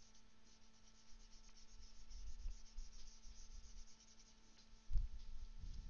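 Faint, quick scratching of a pen stylus rubbed back and forth over a drawing tablet while colouring in, followed about five seconds in by a couple of low dull thumps.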